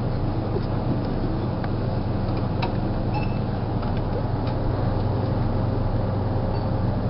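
Steady low hum of a shop's background machinery, with a few faint clicks and taps near the middle.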